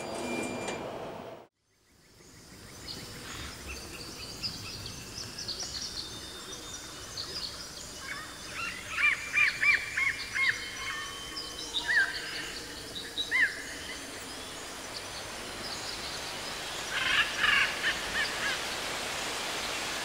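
Birdsong ambience: several birds chirping and calling over a soft steady hiss. It fades in after a short gap about two seconds in, with runs of quick hooked chirps about eight to thirteen seconds in and again near seventeen seconds.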